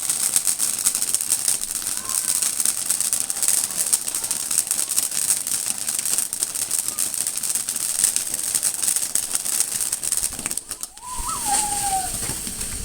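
Firework fountain burning: a dense, steady crackle of spitting sparks over a high hiss. The crackle dips briefly near the end, and a short falling tone follows.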